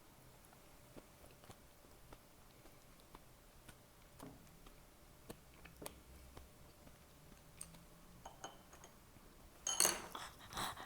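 Quiet, close-miked eating sounds: soft chewing with small scattered clicks, then near the end a short, louder cluster of clicks and clatter, like tableware knocking against a dish.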